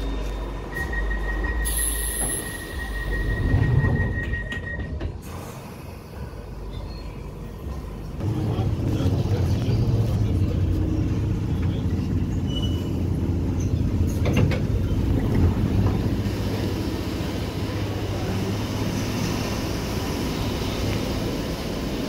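London Underground Piccadilly line train. A steady high beep sounds for a few seconds near the start. From about eight seconds in comes the continuous low rumble and motor hum of the train running into the station.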